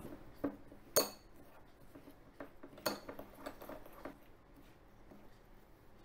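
A metal fork clinking and scraping against a glass bowl while stirring dry crumble ingredients. Irregular light taps, the sharpest about a second in, die away after about four seconds.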